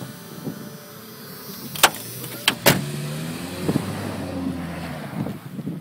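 Toyota Tacoma's four-cylinder engine through a Flowmaster Super 44 muffler, revving up and down as the truck spins through snow and passes close by. About two seconds in, three sharp knocks cut through, louder than the engine.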